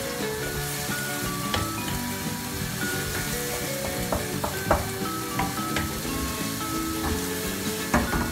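Chopped onion sizzling as it sautés in olive oil in a non-stick frying pan, softening toward translucent, while a wooden spoon stirs it and knocks lightly against the pan a few times. Background music plays underneath.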